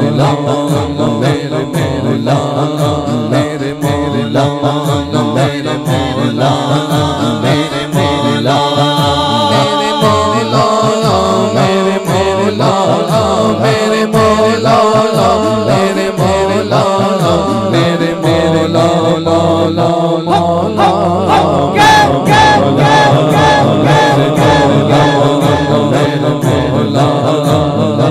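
A man singing an Urdu naat into a microphone, with long, ornamented held notes. A run of evenly spaced sharp taps joins the singing about three-quarters of the way in.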